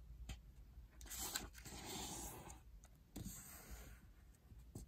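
A sheet of origami colour paper rustling and sliding faintly as it is folded corner to corner into a triangle, in two soft stretches of rustle.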